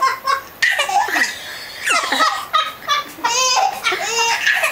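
A baby laughing in a run of short, high-pitched bursts.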